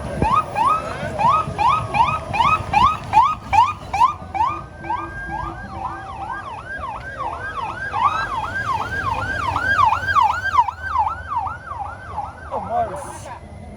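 Electronic siren yelping: quick rising sweeps repeated about two and a half times a second, changing about a third of the way through to a slightly faster up-and-down warble, and stopping shortly before the end.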